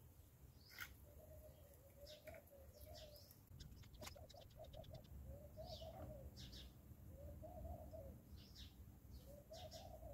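Faint dove cooing: soft low coos recurring every second or two, with a quick stutter of short notes about four seconds in. A few high bird chirps fall in between.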